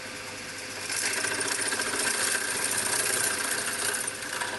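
A twist drill in a machine spindle cutting through a metal rail clamped in a vise, the spindle motor running steadily underneath. The cutting noise grows louder about a second in and drops back near the end.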